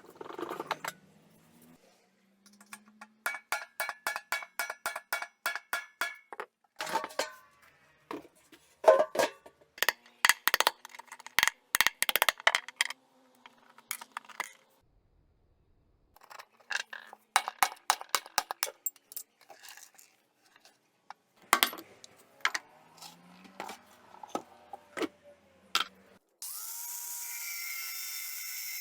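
Metal hammer strikes and clanks while bearings are being replaced, in runs of quick ringing taps (about three or four a second) with pauses between. A steady whirring begins near the end.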